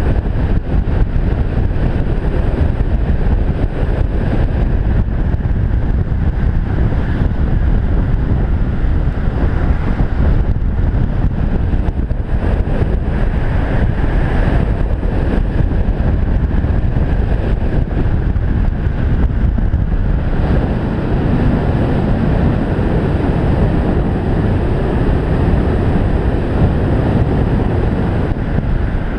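Loud, steady wind rushing over a body-mounted action camera's microphone as the airstream buffets it during a fast speedflying descent on a small wing.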